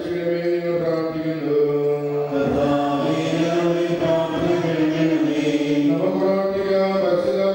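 A man and a woman singing a devotional song into microphones over a PA, in long held, slowly gliding notes; the woman's voice leads in the second half.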